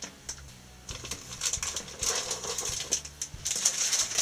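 Clear plastic bag of model-kit parts crinkling and rustling as it is handled, in irregular bursts with small clicks.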